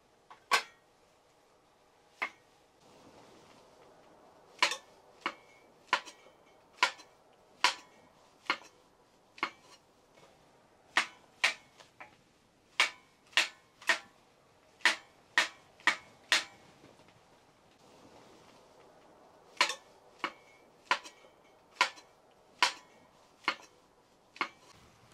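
A series of about two dozen sharp knocks or clacks of something hard being struck, spaced roughly half a second to a second apart, with a short pause about two-thirds of the way through.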